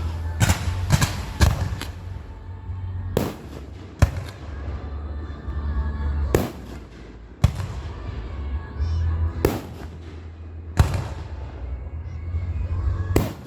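A series of loud, sharp bangs at irregular intervals, each with a short echoing tail, over a low steady rumble.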